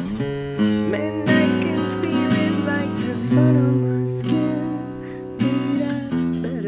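Steel-string acoustic guitar being played, with a run of picked notes and strummed chords, some notes sliding in pitch.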